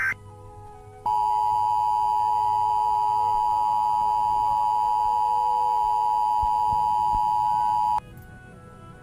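Emergency Alert System attention signal: the two-tone alert (853 and 960 Hz sounded together), a loud, steady, unwavering tone that starts about a second in, holds for about seven seconds and cuts off abruptly near the end.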